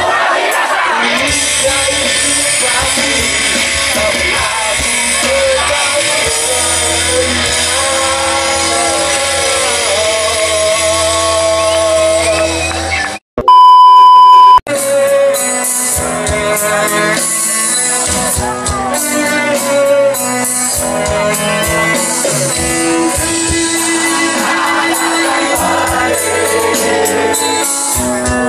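A live punk rock band playing with a singer, heard from the crowd. Just past halfway the music cuts out for a loud steady test-tone beep lasting about a second and a half, then live band music resumes.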